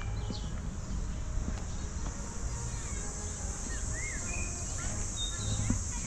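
Insects chirring in a steady high drone, growing stronger partway through, with scattered short bird chirps over a low background rumble.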